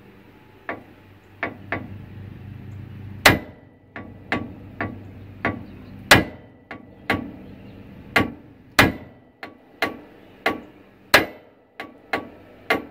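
Steel hammer striking the tie rod end at the steering knuckle of a Workhorse W24 motorhome chassis: about twenty sharp metallic blows at an uneven pace of one or two a second, some ringing briefly. The blows are meant to shock the stuck tapered tie rod stud loose from the knuckle, and it has not let go yet.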